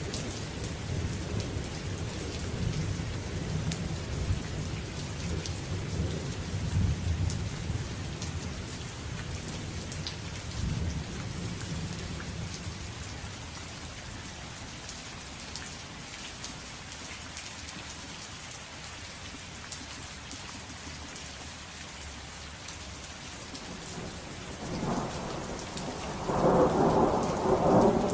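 Steady rain falling with thunder. A low rolling rumble fades away over the first ten seconds or so, then a louder roll of thunder builds near the end.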